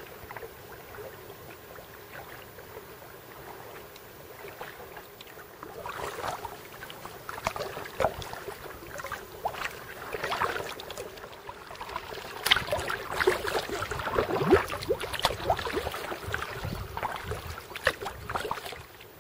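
Kayak paddle strokes in calm water: irregular splashing and dripping from the paddle blades, fainter at first and louder and busier from about six seconds in, dying away just before the end.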